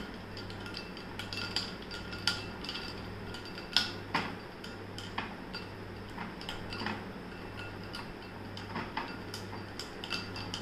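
Metal spoon stirring a mango milkshake in a tall glass, clinking irregularly against the glass and ice cubes, with the loudest clink about four seconds in.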